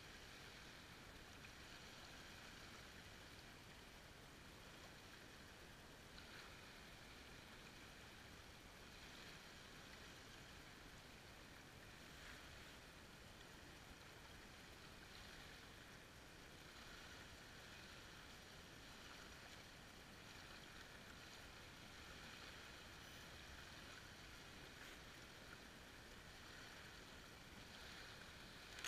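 Faint small sea waves lapping on a sandy shore, a soft wash that swells every few seconds over a steady low hiss.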